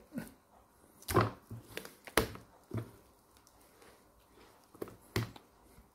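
Several sharp knocks and taps on a plastic cutting board as a raw chicken is cut up with a knife and handled, spaced out over a few seconds, with soft handling sounds between them.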